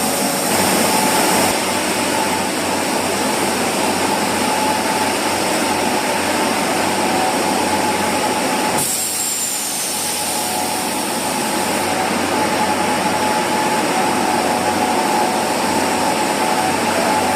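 Automatic rug washing machine running: a steady motor and machinery noise with a constant hum. The sound changes abruptly about nine seconds in.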